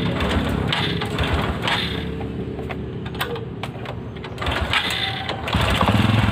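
Honda Karisma (Supra X125) single-cylinder four-stroke engine running roughly at a low idle, growing weaker with scattered ticks about halfway through, then picking up strongly again near the end. Its worn-out carburettor will only keep it running on choke and makes it bog with a 'ngok' when throttled.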